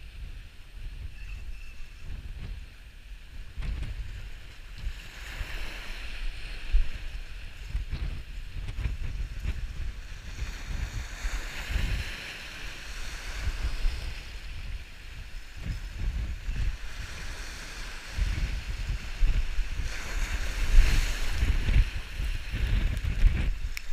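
Gusty wind buffeting the microphone with a low rumble, over surf washing against jetty rocks in hissing swells that come and go every few seconds. It is loudest near the end.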